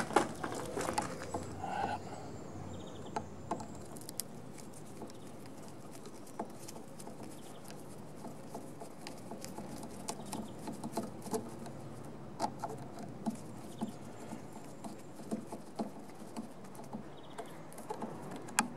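Light, scattered clicks and scratches of a flat screwdriver turning out the brake lever pivot bolt on a Honda Forza 125 scooter, metal on metal, coming thicker in the second half.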